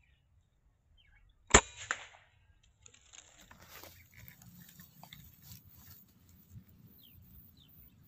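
A single air rifle shot about one and a half seconds in: one sharp crack with a smaller knock just after it. Faint rustling and clicks follow as the gun is moved about.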